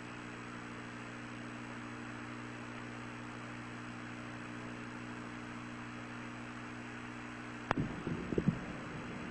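Steady electrical hum with hiss from an old broadcast audio feed. Near the end comes a sharp click, then a few short loud crackling bursts.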